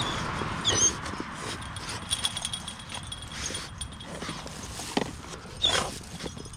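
Dogs being given treats: a couple of short, high-pitched whines with scattered clicks and snaps between them.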